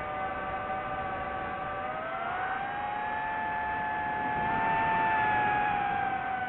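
DJI FPV drone's motors and propellers whining steadily, the pitch rising about two seconds in as the throttle goes up, then easing back down near the end.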